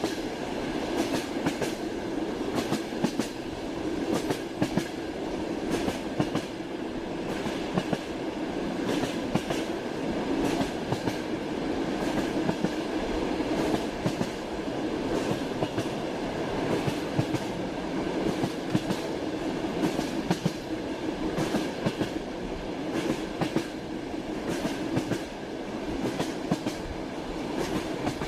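Train wheels clattering over the track: frequent sharp clicks over a steady running hum.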